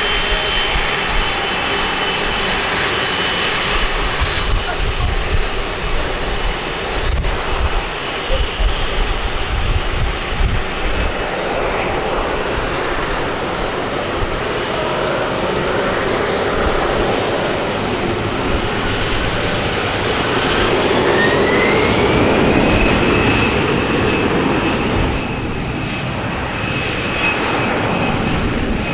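Airbus A330-300 jet engines running, a loud rumble with a high whine; about twenty seconds in the whine rises in pitch over a couple of seconds, then holds steady.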